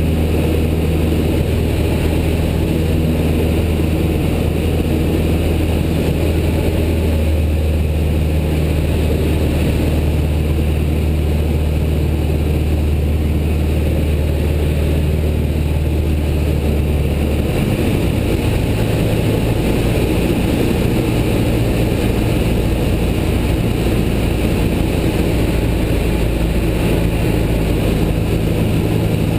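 Piston engine and propeller of a light single-engine plane heard from inside the cockpit in flight: a loud, steady drone with rushing air noise. About 17 seconds in the engine note shifts abruptly, its deepest tone dropping away.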